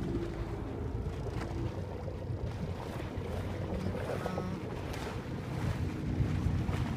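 Wind buffeting the microphone over the low, steady running of a boat's engine at sea, with water sloshing against the hull.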